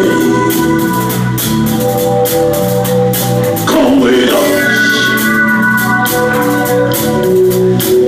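Live soul band playing: held organ chords over a bass line and drums. A singing voice slides in briefly about four seconds in.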